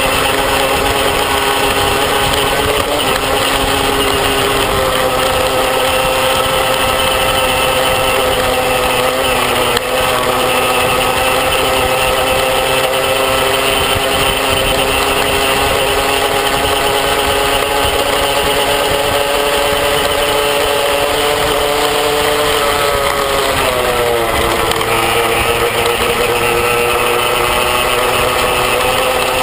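Small motorbike engine running steadily at cruising speed, with a rush of wind and road noise over it. About three-quarters of the way through the engine note falls and then holds at a lower pitch.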